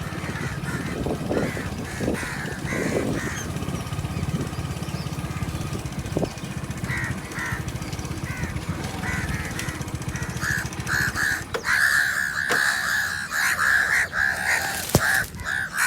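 Crows cawing, scattered calls at first, then many harsh caws in quick succession over the last few seconds. Under the early calls an engine runs steadily and stops about ten seconds in.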